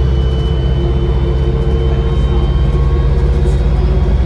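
Diesel bus engine running under way, heard inside the cabin as a steady low drone, with a thin high turbocharger whistle over it that fades about three seconds in.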